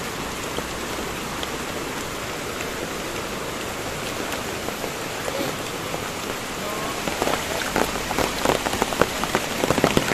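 Steady rain falling. From about seven seconds in, heavy drops begin striking close to the microphone in quick, sharp ticks.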